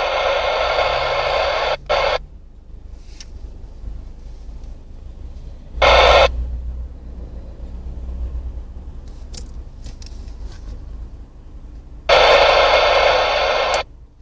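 TTI 881 CB radio's speaker giving loud static hiss in bursts that cut on and off: one stretch ends about two seconds in, a short burst comes around six seconds, and another lasting under two seconds comes near the end. A much quieter low rumble lies between them.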